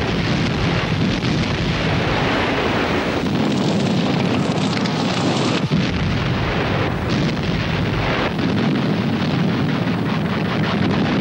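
Dense, continuous din of aerial-bombing explosions, a rolling rumble with no single blast standing out. It shifts abruptly about three and a half and again about six seconds in.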